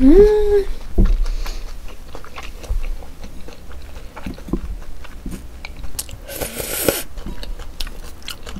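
Close-miked eating sounds: chewing and mouth clicks from a mouthful of food, opening with a short hummed "mm" that rises in pitch, with wooden chopsticks tapping in a glass bowl.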